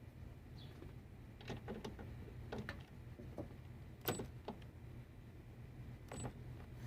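A few short clicks and brief bursts from a Milwaukee M12 Fuel high-speed ratchet triggered against a bolt torqued to 35 ft-lb. On the small 1.5 Ah battery it stalls and cannot break the bolt loose. A steady low hum sits underneath.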